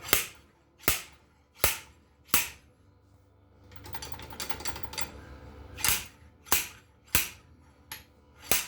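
Sharp hammer blows on the seized engine, about one every 0.7 s. There are four blows, then a rattling stretch of about two seconds, then four more blows.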